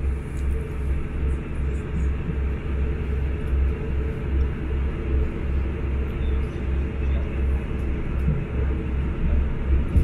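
Cabin sound of a BR Class 159 diesel multiple unit getting under way, its underfloor Cummins diesel engine working and the wheels running on the track. It is a loud, low rumble that pulses about three times a second.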